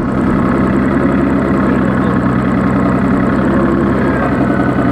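Boat's outboard motor idling steadily in neutral.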